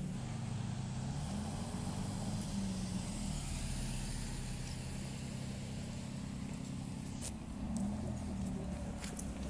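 Aston Martin sports car engines running at low revs as the cars roll slowly away, a steady low rumble with a small rise in revs about eight seconds in.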